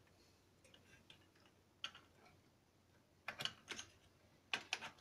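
Light clicks and taps of hard plastic parts on a partly dismantled Nerf blaster being handled: a single click about two seconds in, then two short clusters of clicks near the end.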